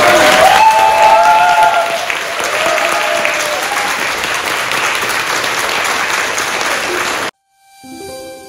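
Congregation applauding, with a few raised voices over it in the first couple of seconds. The applause cuts off abruptly about seven seconds in, and soft instrumental music begins a moment later.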